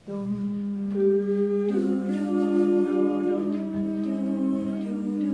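A vocal ensemble singing slow, sustained chords: one low note held steadily while higher parts join in about two seconds in.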